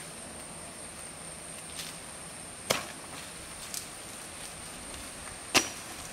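Two sharp cracks about three seconds apart, with a couple of fainter ticks between, as banana leaves are broken off the plant by hand. A steady high thin whine runs underneath.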